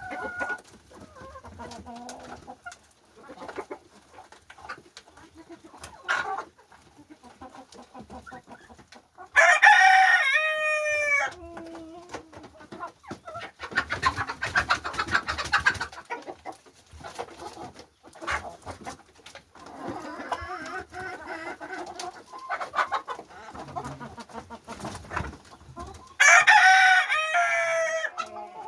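Chickens clucking throughout, with a rooster crowing twice: one long crow about a third of the way in and another near the end, each lasting about two seconds and falling in pitch at its close.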